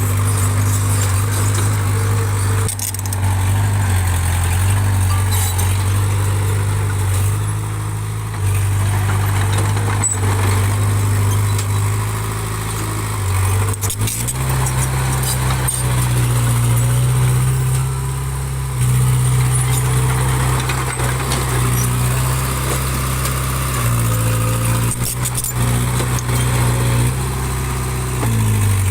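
Diesel engine of earthmoving machinery running steadily. It picks up speed about halfway through, holds there, and drops back near the end, with a few light knocks over it.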